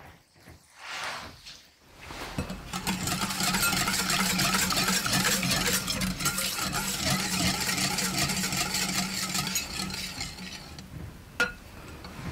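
Whisk beating batter in a mixing bowl with fast, continuous strokes for about eight seconds, then a single sharp click near the end.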